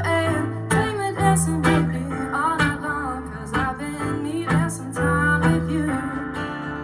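A rock band playing live, with strummed guitar over held bass notes and a melody line.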